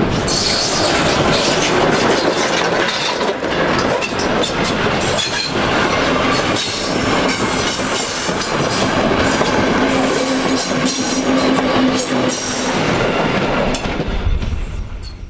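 Class 50 steam locomotive 50 3708-0 passing at close range, followed by its passenger coaches rolling by, their wheels clacking over rail joints and points. A steady hum runs under the rolling noise through the middle of the pass.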